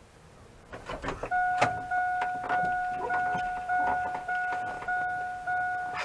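Chevy Astro van's dashboard warning chime beeping at an even pace, about eight chimes, each a steady two-tone beep. Just before it starts come a few clicks and rattles of the keys at the ignition.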